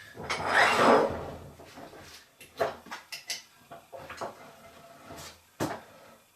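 Quick-release bench vise with walnut jaws being worked: a loud sliding rush about half a second in, then scattered wooden knocks and clicks.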